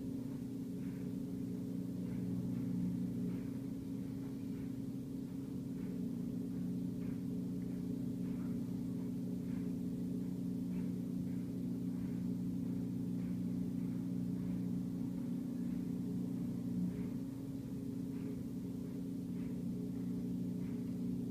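A steady low machine hum of several tones held level, with faint short chirps or ticks repeating about once a second.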